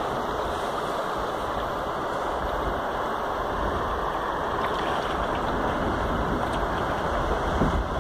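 Steady rush of flowing river water around a canoe heading into a rapid.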